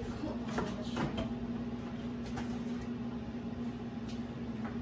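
Kitchen knife slicing a red onion on a cutting board, a few irregular taps of the blade on the board, over a steady low hum.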